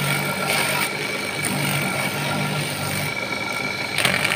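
Electric motor spinning a sandpaper-wrapped spindle, running steadily with a low hum and a constant high whine, while the inside of a monel ring is sanded against it with a light rasping hiss.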